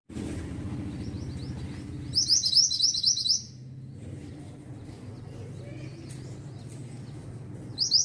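Pied bushchat (mantenan) singing: a quick run of about eight high, repeated notes lasting about a second, heard about two seconds in and again near the end, over a low steady hum.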